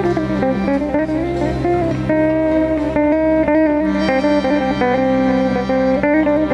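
Instrumental interlude from a Tajik folk ensemble: plucked long-necked lutes and electric guitar play a running melody over a held low note, with no singing.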